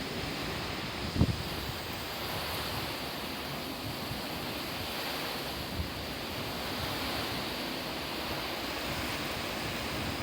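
Typhoon wind and rain making a steady rushing noise, with a sharp low thump about a second in and a fainter knock midway.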